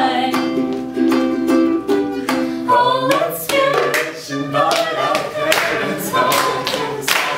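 A small guitar strums chords under a woman's singing, then stops about three seconds in. Hand claps then keep a beat under her voice.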